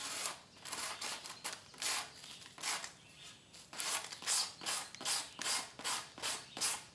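80-grit sandpaper on a sanding block rubbed back and forth over the cured epoxy tips of a wooden paddle, a scratchy stroke about twice a second.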